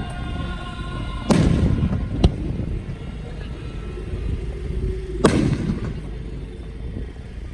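Two aerial firework shells bursting with heavy booms that echo out, the first about a second in and the second about four seconds later, with a sharp crack between them, over a steady low rumble.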